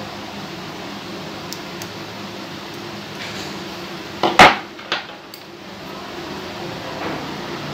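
A metal pedicure tool, likely the nail nippers, set down with a sharp clatter about four seconds in, followed by a smaller knock, over a steady background hum.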